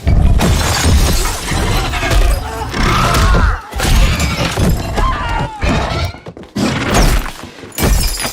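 A film sound-effects mix of crashing and breaking, with shattering and heavy thuds, bursting in suddenly and running on loudly.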